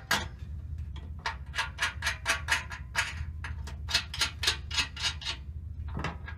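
Light metallic clicking, about three to four clicks a second, as the eyebolt and hook of a snow plow's coil tension spring are turned by hand on the steel blade. The clicking stops about five seconds in, with one more click near the end.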